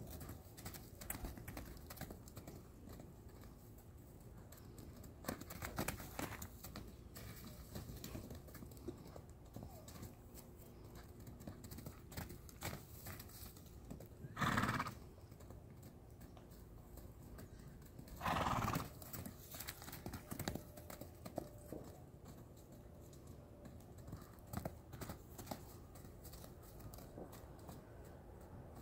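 A horse whinnies twice, about four seconds apart, each call short and under a second long; around the calls come scattered soft thumps and rustles of hooves moving on grass.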